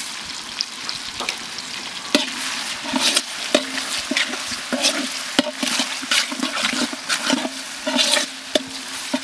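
A metal ladle stirs and scrapes a large metal pot of onions, tomatoes and green chillies frying in oil. Irregular scrapes and knocks, some with a short ring from the pot, sit over a steady sizzle.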